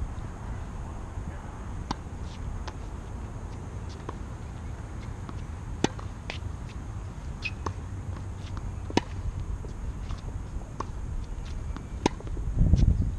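Tennis rally on a hard court: sharp pops of a ball struck by racquets and bouncing, every second or two, the loudest about six and nine seconds in. Under them a steady low wind rumble on the microphone swells near the end.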